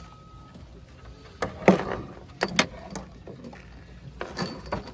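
Scattered knocks and clatter on a fiberglass boat deck as loose blue crabs are chased with an aluminium-handled landing net: a couple of sharp knocks about a second and a half in, two more a second later, and a quick cluster near the end.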